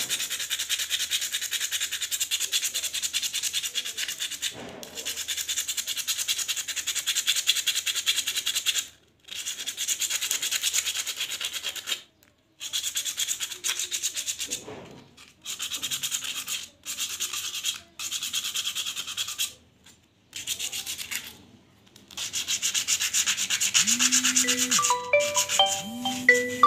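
A rusty, scratched metal part of an air rifle being rubbed down with a sanding pad by hand: quick scratchy strokes in bouts of a few seconds with short pauses between. A tune of plucked-sounding notes starts near the end.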